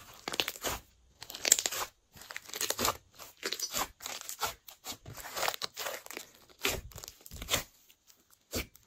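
Clear glitter slime being squished and pressed by hand, giving a run of short, irregular sticky pops and crackles about one or two a second.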